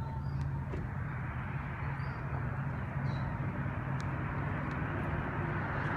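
Steady outdoor rumble of city traffic, with a few faint high chirps; the rumble swells slightly near the end.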